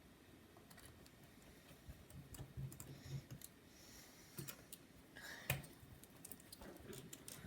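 Faint, irregular clicks and taps of tiny screws and a precision screwdriver being handled on a laptop's case, with the sharpest click about five and a half seconds in.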